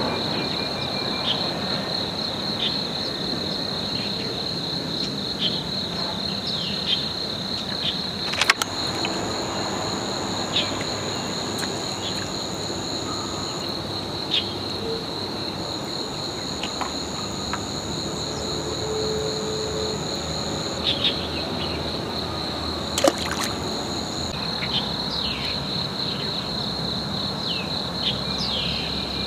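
Insects chirring in a steady, continuous high trill. A second, higher-pitched insect joins for two long stretches in the middle. A few short chirps are scattered throughout, and two sharp clicks come about a third of the way in and again past the middle.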